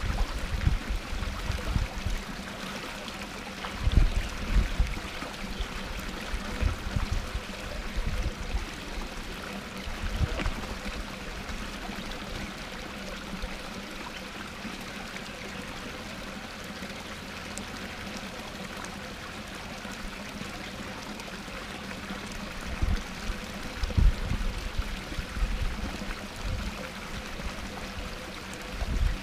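Small waterfall spilling over rocks into a pond, a steady splashing trickle, with brief low rumbles now and then, the strongest about 4 and 24 seconds in.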